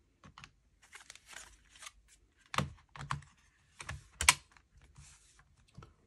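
Laptop battery being slid and pressed into the battery bay of a Dell Latitude E7450: light plastic scraping and small clicks, with two sharp clicks as it seats, the louder one a little past four seconds.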